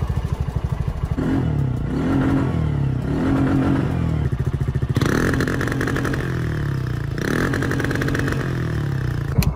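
Small engine of a Polaris youth side-by-side revving up and down again and again as its rear wheels spin in loose sand, stuck and unable to pull out. A rushing noise joins in about five seconds in.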